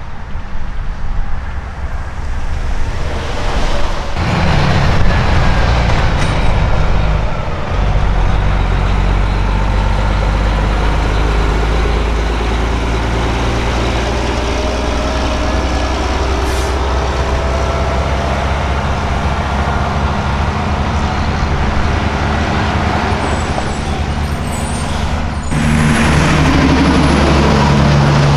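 Diesel semi-truck engines running as heavy trucks pull past at low speed, one after another, with a steady low drone. A second, louder truck engine comes in near the end.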